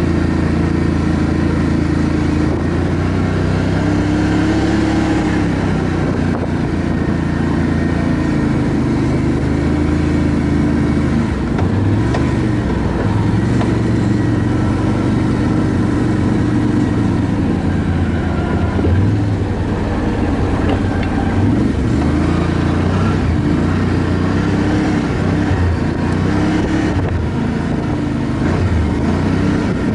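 ATV engine running while being ridden, its pitch rising and falling as the throttle is eased on and off.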